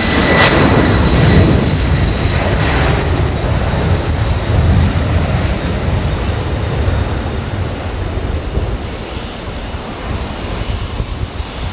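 Jet airliner's engines running loud close by, with a high whine near the start. The noise slowly dies away as the aircraft moves off.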